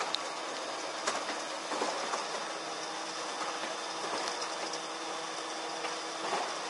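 Truck-mounted ladder lift running its platform up the extended boom: a steady mechanical whir, with scattered clicks and rattles as the carriage runs along the ladder rails.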